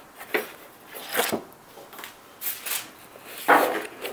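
Handling noise from a Starlink Mini satellite dish being turned over in the hands: a few short, irregular rubs and rustles of its plastic casing against hands and clothing, the loudest a little over three seconds in.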